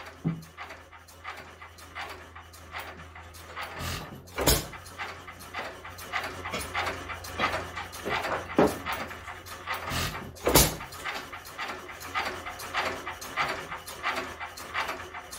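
Modified International hit-and-miss engine running with buzz-coil make-and-break ignition: a fast run of puffs and clicks as it coasts, broken by a few louder firing bangs at uneven intervals, two of them close together just past the middle. A steady low hum runs underneath.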